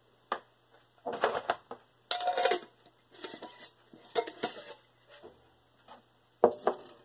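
Kitchen-counter handling noises in about half a dozen short bursts: white plastic measuring cups clattering as they are knocked and set down, and a foil Mylar pouch holding dried macaroni rustling as it is handled.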